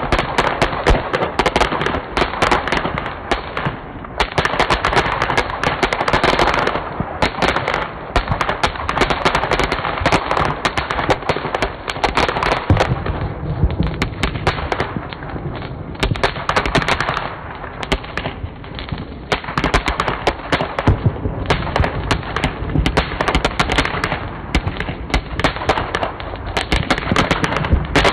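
Ground firework fountains spraying sparks with dense, rapid crackling pops that swell and ease in waves every few seconds.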